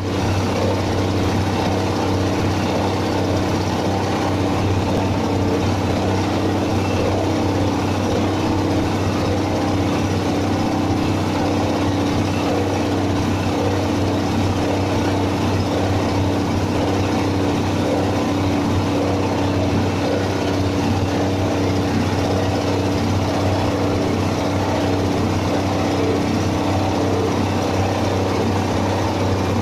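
Stationary diesel engine running at a steady speed and driving a compost and grass chopper, a constant, even hum with no changes in speed.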